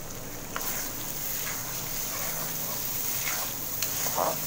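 Onions and spice paste sizzling in hot oil in an aluminium pan. A metal spoon clicks and scrapes against the pan a few times as the masala is stirred.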